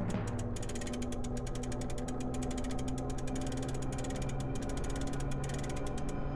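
Clockwork sound effect: a rapid run of ratcheting clicks as a clock's hands are spun fast, over low held tones. The clicks stop shortly before the end.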